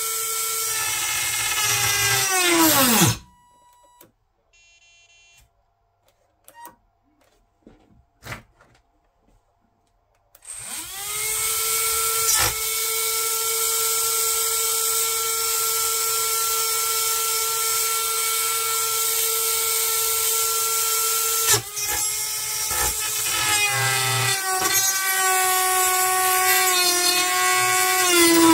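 Small electric motor of an RC excavator's wood-cutter attachment whining at high speed, then winding down to a stop about three seconds in. After several seconds of quiet broken by a few small clicks, it spins back up to a steady whine. Later its pitch repeatedly wavers and sags.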